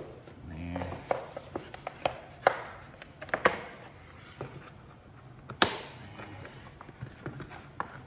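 Small clips on a lampshade's wire ring being snapped onto the rim of a fabric drum shade: a run of separate sharp clicks and snaps with handling of the stiff shade between them, the loudest snap about five and a half seconds in.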